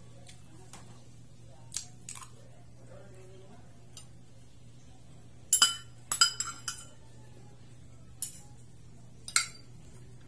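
Metal spoon and fork clinking and scraping against a plate while eating, in short sharp strikes with a brief ring, the loudest cluster about halfway through.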